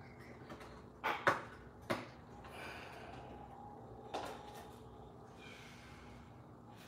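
Sharp plastic clicks and taps, about four in all with the second the loudest, as the body clips and plastic body of a Kyosho Mad Wagon RC truck are worked loose, with soft rustling between them.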